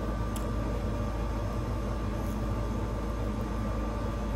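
Steady low background hum with a faint, constant high tone underneath, and a single light click just after the start.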